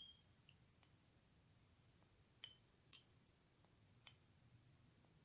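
A plastic spoon clicking lightly against small glass bowls while brewed tea is spooned out: three faint clicks in the second half, two about half a second apart and one a second later, over near silence.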